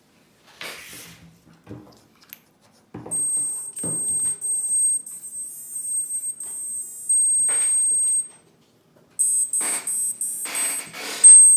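Electronic tones and beeps played through a 2207 1950KV brushless drone motor by its ESC. A held high tone sequence runs for about five seconds from about three seconds in, then a string of short even beeps, then a brief loud tone near the end. Handling clicks and knocks come in between.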